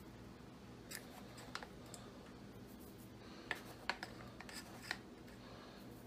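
Faint clicks and scrapes of a measuring spoon as dried cilantro is scooped and shaken into the pot: a scatter of light ticks, the sharpest about three and a half and four seconds in, over a faint steady hum.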